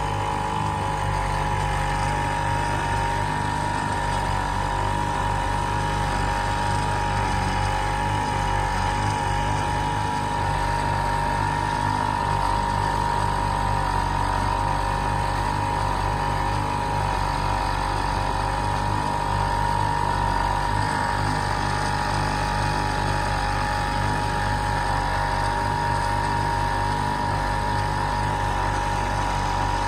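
1948 Evinrude Sportsman 1.5 hp two-stroke outboard motor running steadily under way, a constant high note over a low drone with no change in speed.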